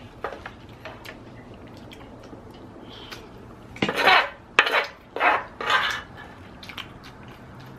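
Wooden spoon scraping and clinking across an electric griddle plate, gathering leftover crispy fried rice: light clicks at first, then several louder scrapes about four seconds in.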